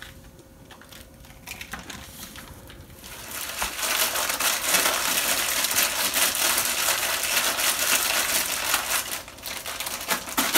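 Plastic packaging being handled and crinkled: after a quiet start, a long run of loud, crackling rustle begins about three seconds in and lasts until near the end.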